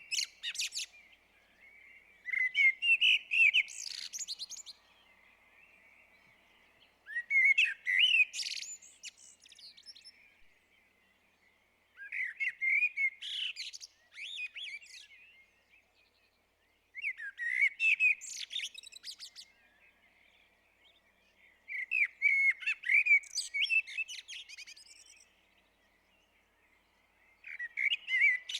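A blackbird singing in separate phrases about every five seconds. Each phrase is a fluty warble that ends in higher, scratchy twittering, with short quiet pauses between phrases.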